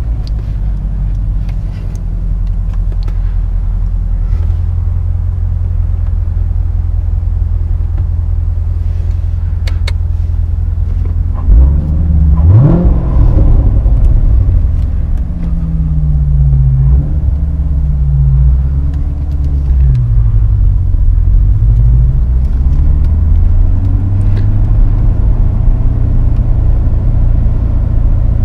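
Corvette C7 Stingray's 6.2-litre naturally aspirated direct-injection V8 running under way with a deep, steady drone. About twelve seconds in the revs sweep quickly upward, and the engine note then rises and falls several times before settling into a steady pull.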